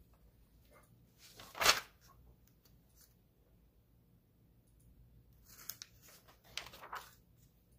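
Glossy catalog page being turned over, with one sharp paper flap a little under two seconds in, then softer paper rustling and scratching near the end as the pages are handled and marked with a pen.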